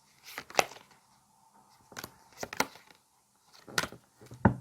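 Tarot cards being handled and laid down: a few scattered sharp clicks and slaps, with a deeper knock near the end.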